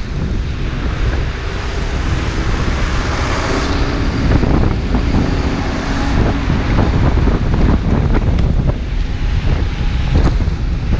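Heavy wind buffeting on the microphone of a moving bicycle, with a lorry's engine hum rising alongside a few seconds in as the truck passes close and pulls ahead.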